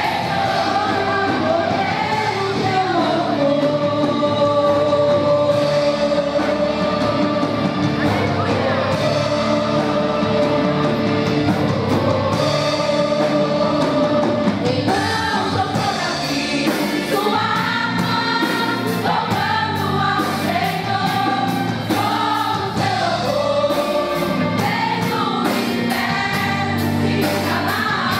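A women's choir singing a gospel worship song with instrumental accompaniment.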